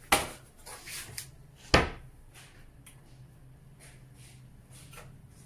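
A stainless steel pot knocking against a glass-top stove as it is set down: a light clack at the start and a louder clunk just under two seconds in, followed by a few faint clicks.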